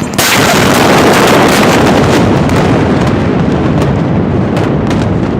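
A large explosion: a sudden blast just after the start, followed by a long, loud rumble with scattered cracks.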